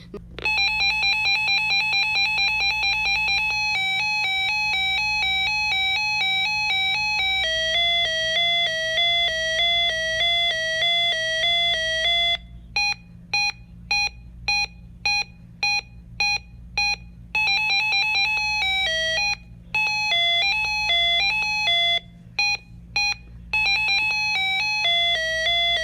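A REECOM 1630 weather alert radio's built-in siren under test, cycling through its alert tones. First a fast two-tone warble (the warning siren), then a medium-rate one (watch), then a slow one (advisory), then runs of short on-off beeps (the test beep).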